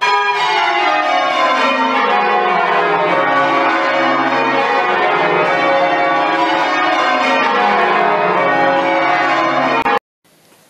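Church bells ringing a peal of changes: many bells struck in turn in repeating descending runs. The ringing cuts off abruptly about ten seconds in.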